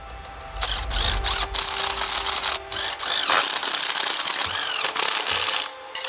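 A power tool running in several bursts with short stops between them.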